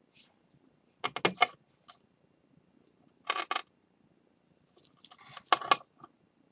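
Pieces of a broken ceramic bowl clicking and scraping against each other as they are fitted together, in three short bursts: about a second in, past three seconds, and about five and a half seconds in.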